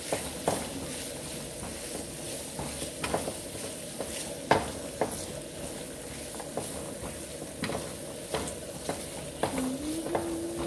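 Liver and sliced onions sizzling in a nonstick frying pan, stirred with a wooden spatula that scrapes and taps against the pan at irregular moments, one tap louder about four and a half seconds in.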